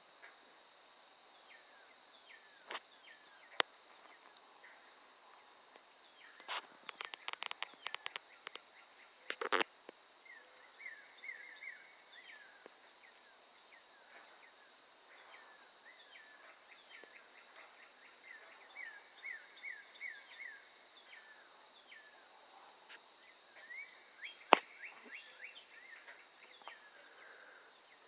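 Outdoor insect chorus, crickets chirping in a steady high-pitched trill. Runs of short rising chirps come in now and then, and there are a few crackly clicks and two sharp clicks, the louder one near the end.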